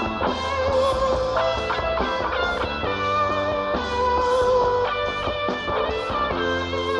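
Live rock band playing an instrumental break: a lead guitar holds long notes over bass and drums.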